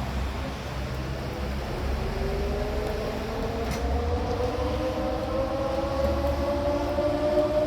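Town civil-defence siren sounding the noon signal, starting up about two seconds in and winding up with a slowly rising, growing wail. A low rumble runs underneath.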